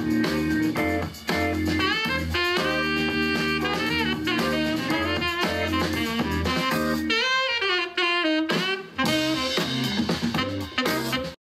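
Jazzy music with horns and drums played through a portable Bluetooth speaker during a sound test, cutting off abruptly near the end.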